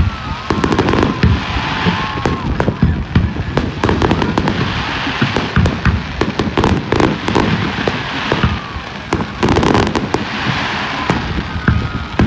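Fireworks display: aerial shells bursting in a rapid, irregular string of bangs and crackles.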